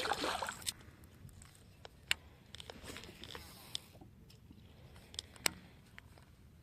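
Close handling noises: a short burst of rustling at the start, then scattered small clicks and knocks.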